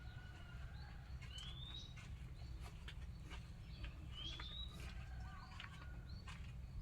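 A bird repeating a short rising whistled call about every three seconds, over a steady low rumble and scattered clicks.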